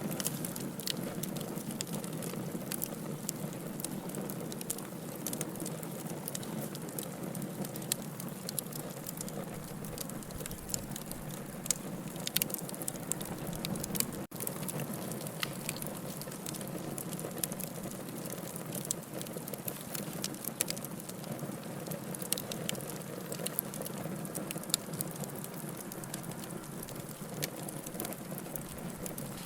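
Wood fire burning in a fireplace: a steady hiss with frequent sharp crackles and pops throughout, and a brief break in the sound about halfway.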